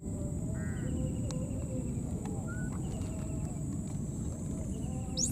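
Wetland wildlife ambience: scattered faint short calls and chirps over a steady low background noise and a steady high-pitched whine. A sharp, high squeal rises and falls near the end.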